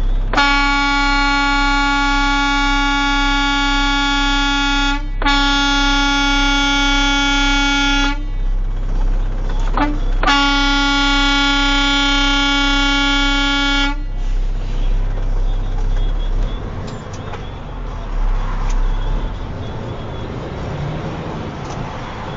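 Truck horn blown in three long blasts of about five, three and four seconds on one steady pitch, with a short toot between the second and third, as a warning to a dangerous driver. A low steady engine hum runs underneath and is heard alone after the last blast.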